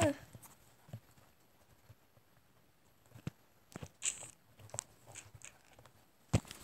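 A phone being handled: scattered faint clicks and taps with a little rustling, then a louder knock near the end as the phone is tilted. A short bit of voice is heard at the very start.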